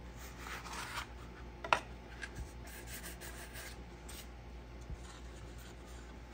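Gloved hands handling a filler-coated RC snowmobile body piece: short scratchy rubbing against its sanded filler surface, with a sharp tap about a second and a half in. A soft low thump follows about five seconds in.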